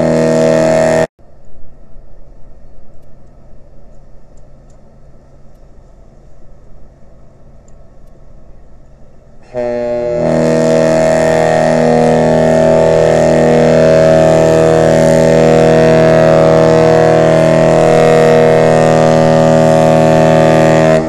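The Great Lakes freighter James R. Barker's deep ship's horn sounding in salute. One blast cuts off abruptly about a second in, then after a quieter stretch a long blast sounds for about eleven seconds.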